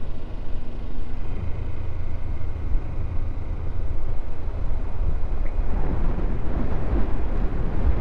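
Motorcycle riding along a road: a steady engine-and-road rumble, heaviest in the low end, with no sudden events.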